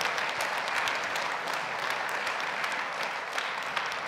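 An audience in a large hall applauding steadily, a dense patter of many hands clapping.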